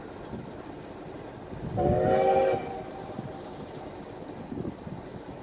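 Steam locomotive sounding one short whistle blast, a chord of several tones, about two seconds in, over a steady low rumble from the approaching train.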